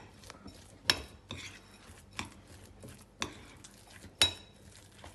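Metal spoon clinking and scraping against a ceramic bowl while mashing a soft ricotta, Parmesan and minced meat filling: about five sharp clinks, roughly a second apart, with soft scraping between them.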